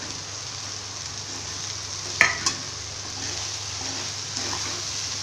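Soaked soya chunks sizzling in hot oil in an aluminium kadai as they are stirred in with a slotted steel spoon. About two seconds in there is one sharp metal clank, then a lighter one.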